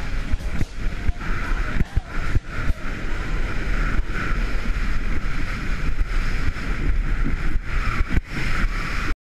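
Wind buffeting an action camera's microphone during a fast ski run, with the skis hissing and scraping over packed snow and occasional knocks; the sound cuts off suddenly near the end.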